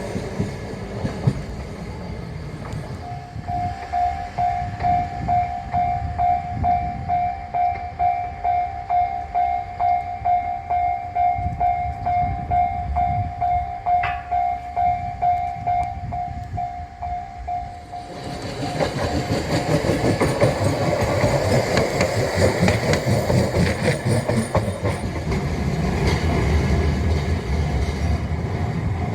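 Railroad crossing warning alarm ringing in a steady repeating ding, then a train running over the crossing from about eighteen seconds in, its wheels rumbling and clacking on the rails.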